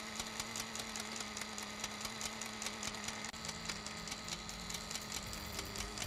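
Sewing machine running steadily: an even, rapid clicking of the stitching mechanism over a steady motor hum.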